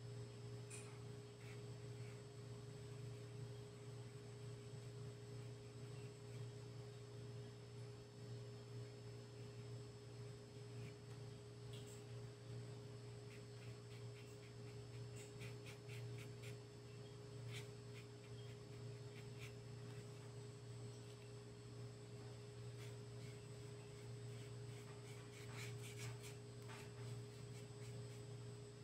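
Quiet steady low hum with faint light clicks scattered through, bunched a little past the middle and again near the end.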